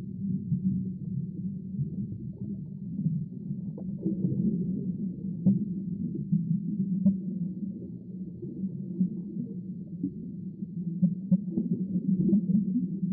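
Muffled underwater churning and sloshing of water from a swimmer's front-crawl strokes, heard from a camera below the surface, with a few short knocks scattered through.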